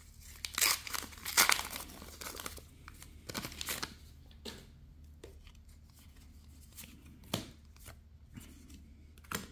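A Flesh and Blood trading-card booster pack wrapper being torn open and crinkled in loud crackling bursts over the first few seconds, then quieter sliding and flicking of the cards as they are looked through, with a couple of sharp clicks.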